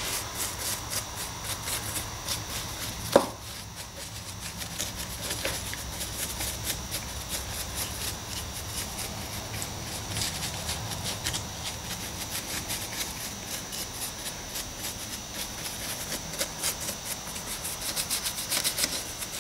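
A paintbrush scrubbing and dabbing over hard plaster rock castings, a continuous run of short scratchy strokes that quickens near the end. This is dry-brushing off most of a thin black acrylic wash. A single sharp knock comes about three seconds in.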